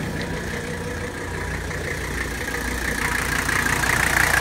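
Mercedes 123-chassis diesel engine idling steadily, growing louder near the end.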